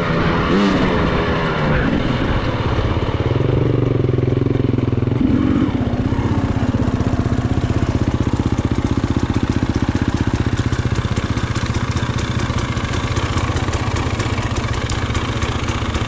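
Dirt bike engine running under way, its revs rising and falling over the first few seconds and then holding steady with an even pulsing beat.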